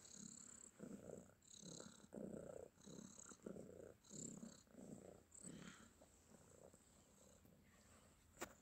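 Domestic cat purring while being stroked, a contented purr in even rising and falling pulses about one and a half a second. The purr fades out about six seconds in, and a single sharp click comes near the end.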